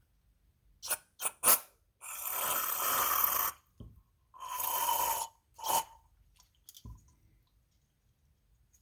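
Two bursts of spray hissing into a small-engine carburetor's passages, the first about a second and a half long and the second about a second, with light clicks of handling before and after.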